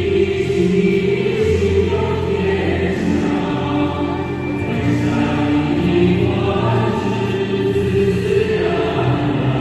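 A choir singing slow Confucian ritual music in long, held notes that change pitch every second or so.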